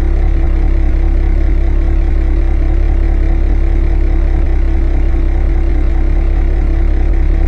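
Car engine running at a steady, unchanging speed: a loud, low, even drone.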